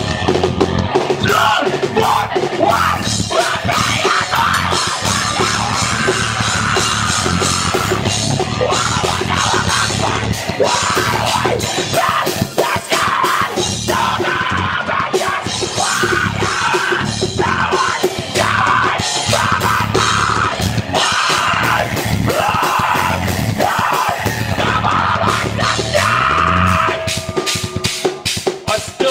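Live heavy rock band playing loudly, with a drum kit and yelled vocals over the music.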